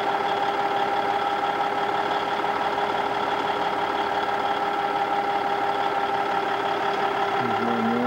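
Caterpillar D8N bulldozer's diesel engine running steadily at idle, holding one even pitch with no revving. A brief pitched sound comes in near the end.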